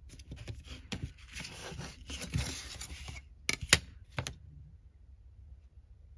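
A blade cutting through paper with a series of short scraping strokes for about three seconds, followed by three sharp clicks as the tools are handled.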